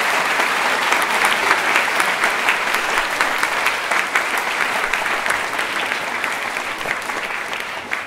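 Audience applauding: a dense, steady clapping that slowly tapers off over the last couple of seconds.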